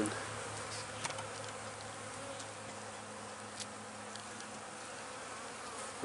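Honey bees buzzing on a frame of comb held close, a steady hum.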